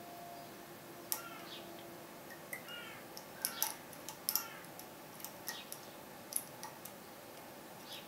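Metal lock pick working the pins of a Dom IX 6KG pin-tumbler cylinder under a tension wrench: a string of irregular sharp clicks with a few short squeaky scrapes, thickest about three and a half to four and a half seconds in.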